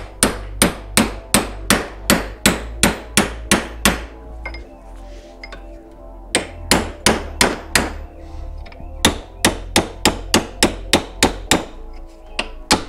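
Hammer blows on a steel punch driving a sealed 6204 RS ball bearing out of a mower deck spindle housing, sharp metal-on-metal strikes about three a second. They come in three runs with short pauses between, then a couple more near the end.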